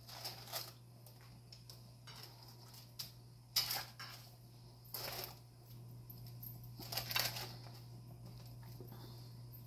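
Short scrapes and rustles of a knife spreading butter over naan bread and the bread being handled in a glass baking dish, the loudest about three and a half seconds in and again around seven seconds in, over a steady low hum.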